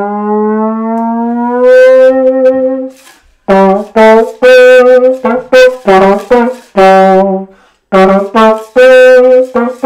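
A plastic vuvuzela, lip-buzzed like a brass instrument and slid longer and shorter like a trombone slide. It plays one long note that slowly rises in pitch for about three seconds. After a short break comes a run of short notes jumping between a few pitches.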